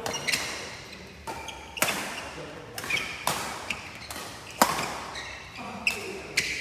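A badminton doubles rally: rackets striking the shuttlecock back and forth, about ten sharp hits at uneven intervals, each with a ringing echo off the hall, the loudest a little past halfway. Short squeaks, likely shoes on the court, fall between some of the hits.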